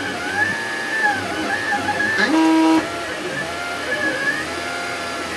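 DaVinci AiO 3D printer's stepper motors whining while the extruder head prints, the pitches sliding up and down as the head speeds up and slows. A little over two seconds in, a faster move rises quickly to a steady, louder tone for about half a second, then stops abruptly.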